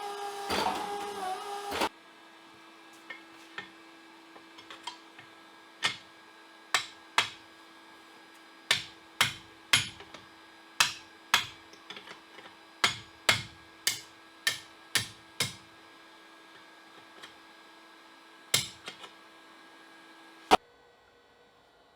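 Hand hammer blows on steel: about twenty sharp strikes in uneven groups over a faint steady hum. A loud machine running cuts off about two seconds in, and a single sharp click near the end stops the hum.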